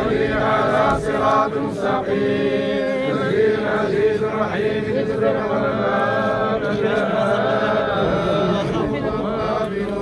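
A crowd of men chanting together in unison, a steady collective religious chant of mourners at a burial.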